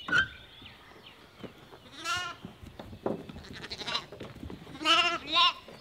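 Lambs bleating: one wavering bleat about two seconds in, then two more close together near the end.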